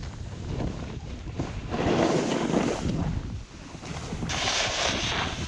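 Wind rushing over the microphone and a snowboard sliding and scraping over snow on a downhill run. The scraping swells louder about two seconds in and turns hissier near the end.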